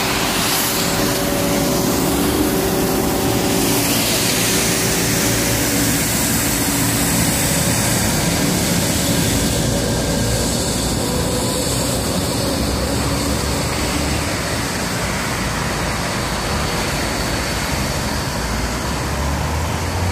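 Steady street traffic noise from passing vehicles, with an engine hum standing out over the first few seconds.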